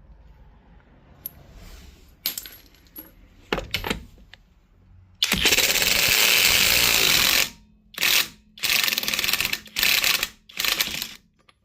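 Flex 24-volt compact cordless impact wrench hammering on a rusted lug nut: one long burst of about two seconds, then four short bursts in quick succession. A few light metallic clicks and knocks come before it.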